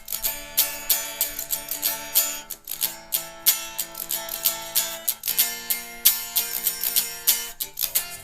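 Guitar strummed in a steady rhythm, several strokes a second, the chord changing about every two and a half seconds.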